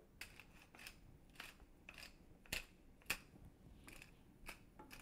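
Wooden pepper mill being twisted to grind pepper: a series of faint, short grinding strokes, about two a second.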